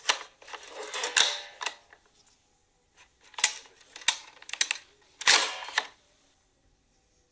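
Hard plastic toy parts of a Play-Doh Transformers playset clicking and rattling as they are handled: sharp clicks and short rattling scrapes in three bursts.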